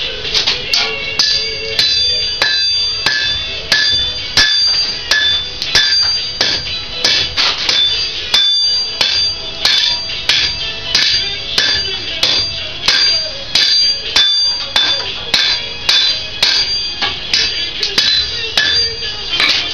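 Blacksmith's hand hammer striking hot steel on an anvil in a steady rhythm, about two blows a second, the anvil ringing with high, lingering tones after each strike.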